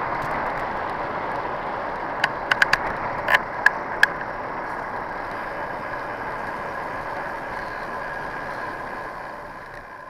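Wind and tyre noise on a bicycle-mounted camera rolling over asphalt, a steady rush with a faint steady tone in it. A quick cluster of sharp rattling clicks comes two to four seconds in, and the rush grows gradually quieter toward the end as the bike slows.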